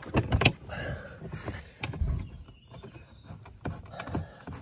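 Clicks and taps of a screwdriver and screw working at the plastic door trim panel at the bottom of a car door, with a dull thump about two seconds in.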